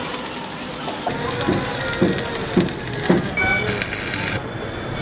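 Stick welding on a steel tube frame: the electrode arc gives a steady crackling hiss, with a few louder pops about halfway through.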